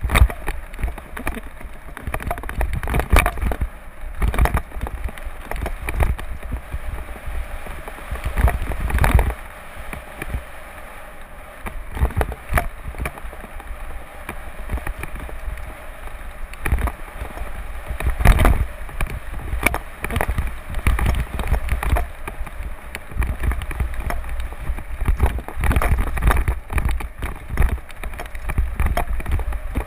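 Mountain bike descending a dry dirt and gravel trail at speed: wind rumbling on the camera microphone and tyres crunching over the surface, with frequent knocks and rattles from the bike over bumps.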